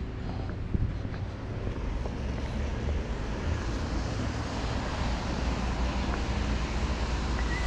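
Street traffic on wet roads: a steady low rumble with tyre hiss that swells from about three seconds in.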